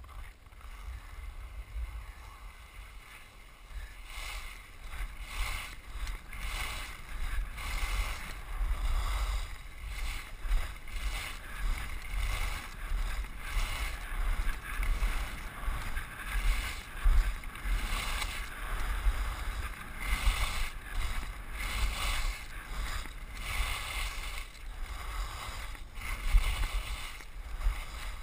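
Edges scraping over groomed, packed snow during a downhill ski run, swelling with each turn every second or so, under a steady low rumble of wind on the helmet-camera microphone.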